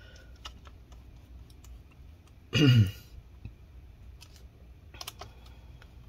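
Scattered light clicks and taps of small laptop screws, a screwdriver and a cooling fan being set into a laptop's chassis. About two and a half seconds in comes a short grunt-like vocal sound, falling in pitch, the loudest thing heard.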